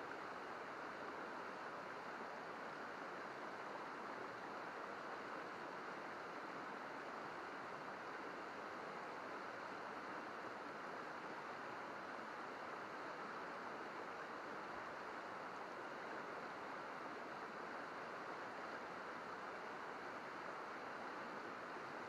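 Shallow river babbling over rocks and stones, a steady, even rush of running water with no breaks.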